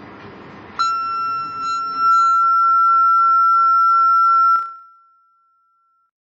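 Solar-powered security alarm sounding one loud, steady, high-pitched electronic tone. It starts about a second in, holds for nearly four seconds, then cuts off.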